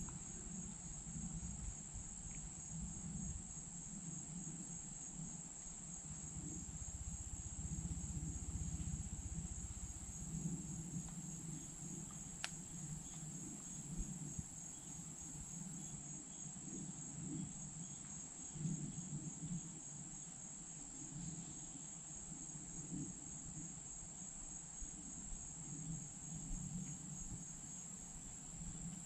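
Woodland insects, crickets or katydids, keeping up a steady high-pitched chorus with a fine rapid pulse, over a faint low rumble.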